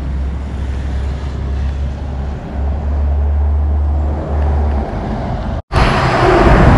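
Road traffic along a wide city street: a steady low rumble. About five and a half seconds in it drops out for a moment and comes back louder.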